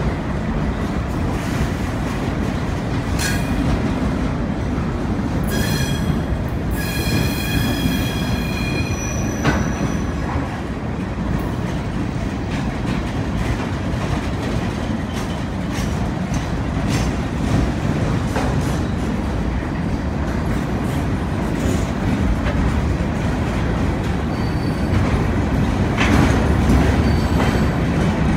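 LIRR work train of flatcars rolling past: a steady rumble of steel wheels on rail with repeated clicks. The wheels squeal in a high, ringing screech from about five to nine seconds in.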